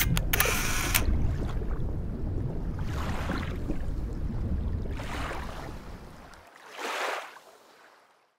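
Ocean surf over a steady low rumble, the waves washing in and out roughly every two seconds, fading out near the end. A camera shutter clicks at the very start.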